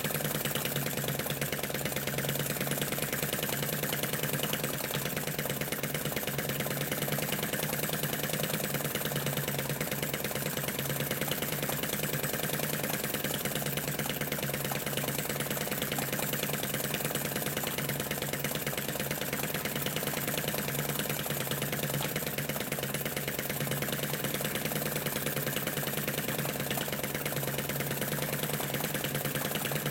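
Model Lanz Bulldog flame-eater (flame-licker) engine running steadily with a fast, even beat, belt-driving a model oil field pump.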